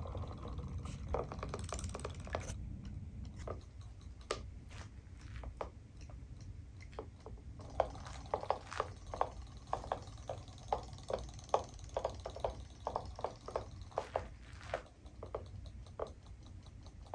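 Light, quick clicking from a battery-powered robotic fish toy swimming in a plastic tub of water. The ticks are scattered at first and come several a second through the middle, then thin out near the end.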